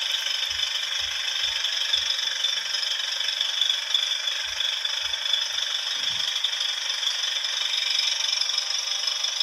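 Engine sound effect of a 1/8-scale Citroën Type H model van: a recorded van engine running steadily, played through the model's small built-in speaker, so it sounds thin with no low end.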